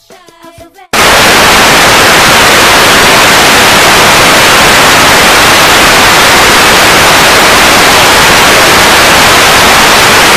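Very loud, steady television static hiss, the white-noise sound of an untuned analogue TV, cutting in abruptly about a second in.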